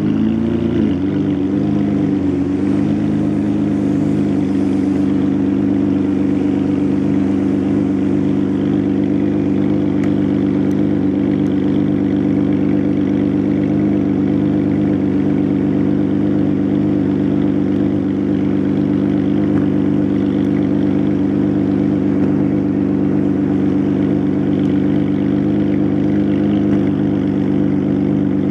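Decatted Ferrari 599's V12 idling steadily through its straight-through exhaust, heard close to the tailpipes.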